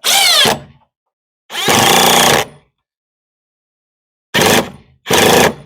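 Cordless impact driver driving screws in four short trigger bursts, its motor whine rising as it spins up at the first.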